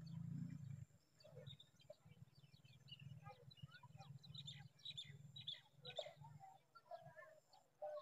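Tailorbirds chirping at the nest as a parent comes in to feed its nestlings: many short, faint, high chirps, thickest in the middle. A low hum cuts off about a second in.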